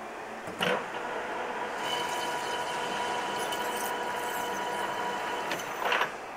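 Metal lathe with a four-jaw chuck starting with a clunk about half a second in, then running with a steady whine, and stopped with another clunk about six seconds in.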